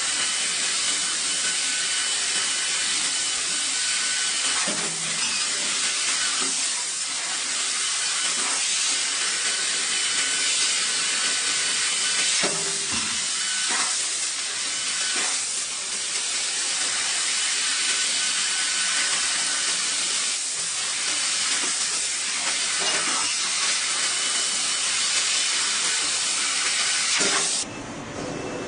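Laser tube cutting machine at work: a steady loud hiss of assist gas blowing from the cutting head, with faint whistling tones and scattered short clicks. The hiss cuts off suddenly about a second before the end, leaving a quieter machine hum.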